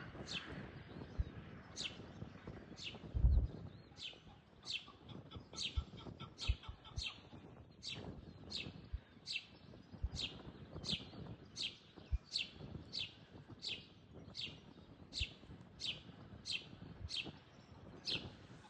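Chukar partridge calling: a long series of short, high notes, each falling in pitch, repeated a little more than once a second, with occasional low thumps underneath.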